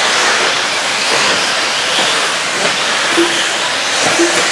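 A field of electric 1/8-scale off-road RC buggies racing on a dirt track, making a steady hiss-like rush of motors, drivetrains and tyres on dirt.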